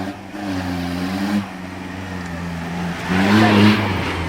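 Off-road 4x4's engine running under throttle, its pitch wavering, then revving up to its loudest about three seconds in.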